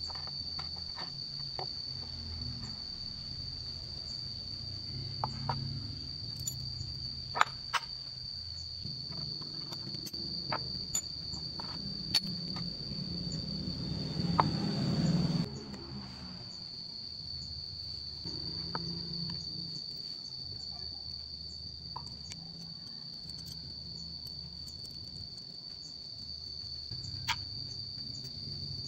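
Insects trilling: one steady high-pitched note that holds throughout. Sparse sharp clicks and taps of steel parts being handled sound over it. A rushing noise swells in the middle and cuts off suddenly about fifteen seconds in.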